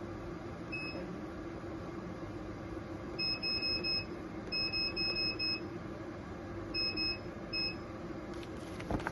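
Laser beauty treatment machine giving short high electronic beeps: a single beep, then two runs of four quick beeps, then a few more, over a steady low hum.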